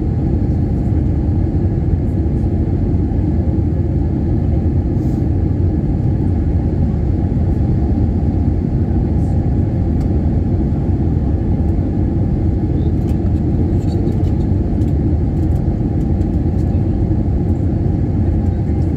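Steady cabin noise of an Airbus A321 with IAE V2500 engines on final approach, flaps extended: a constant low rumble of engines and airflow.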